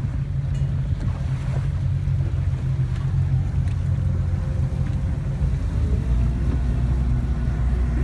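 A boat's engine running steadily, a strong low drone that shifts lower about six seconds in, under wind and sea noise.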